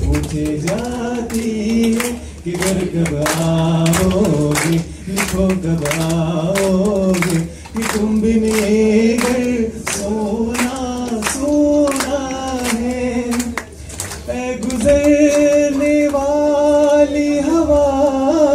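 A man singing unaccompanied into a hand-held microphone, amplified over a loudspeaker, in long held phrases with short breaks between them.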